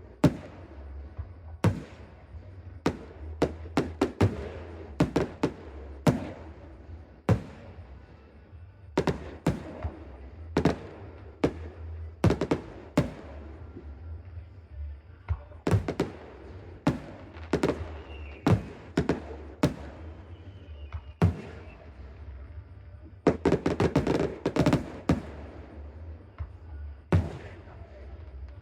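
Aerial fireworks going off overhead: sharp bangs at uneven intervals, each fading out briefly afterwards. About three-quarters of the way through comes a dense run of bangs in quick succession.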